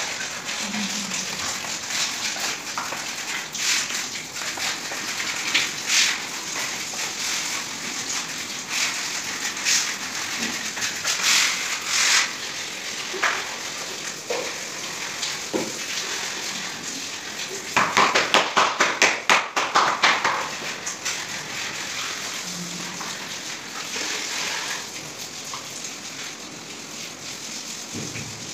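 Hand-held cloth rubbing white cement grout across ceramic floor tiles: a steady gritty scraping with scattered short scratches, and a loud run of quick back-and-forth scrubbing strokes, about five a second, for a couple of seconds about two-thirds of the way through.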